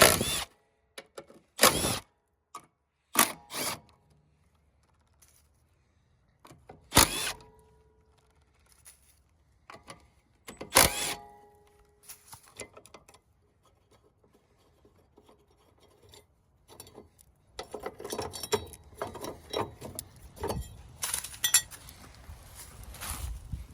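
Hand tools and car parts being handled while a part is fitted to the car: a series of sharp knocks and clicks, a couple with a brief metallic ring, then a stretch of irregular scraping and rattling near the end.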